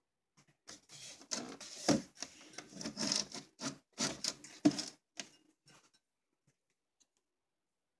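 Handling noise from a handheld camera brushing and bumping against closet shelves: irregular rubbing and scraping for about five seconds, with two sharper knocks about three seconds apart.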